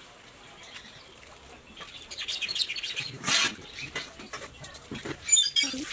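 Mandarin oranges being peeled by hand, close up: the rind tears and crackles in quick irregular bursts, with a louder rip about three seconds in. Bird chirps sound in the background.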